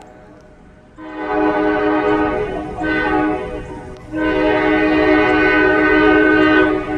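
Air horn of Juniata Valley Railroad diesel locomotive #446 blowing for a grade crossing, a chord of several steady tones. It sounds about a second in, with a brief dip and then a short break, and ends with a long blast of nearly three seconds.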